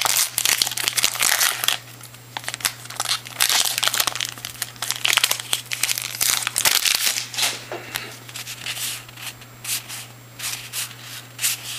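Foil trading-card pack wrapper being torn open and crinkled by hand, dense crackling for about two seconds, then intermittent rustles as the cards are pulled out and slid against each other.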